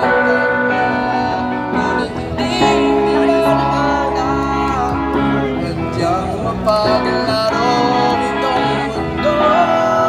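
A song with a singing voice over guitar.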